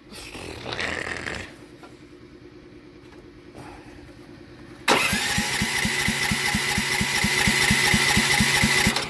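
Small single-cylinder Harbor Freight engine on a water pump being cranked by its electric starter for about four seconds without firing: a starter whine over even compression pulses, about four or five a second. The engine is full of rainwater that ran in through the muffler, so it won't fire. A brief shorter noise comes about a second in, before the cranking.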